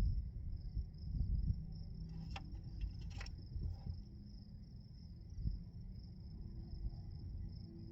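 Crickets chirring steadily and high-pitched, over low rumbling handling noise, with a few sharp clicks about two to three seconds in.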